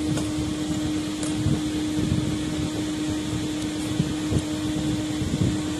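Steady hum of a running electric fan-type machine, with one constant low tone over an even rushing noise.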